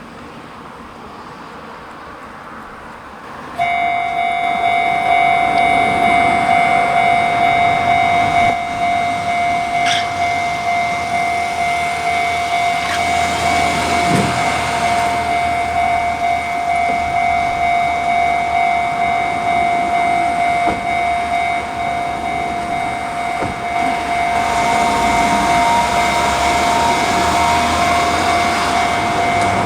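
Japanese level-crossing warning bell starts suddenly about three and a half seconds in and keeps ringing at a steady pitch. Rumble from an approaching Enoden train grows under it near the end.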